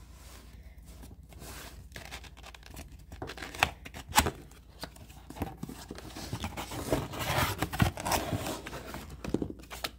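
A cardboard box being handled and opened, its flaps and inner packaging scraping and rustling. There are two sharp clicks about four seconds in, and a longer stretch of scraping and rustling near the end.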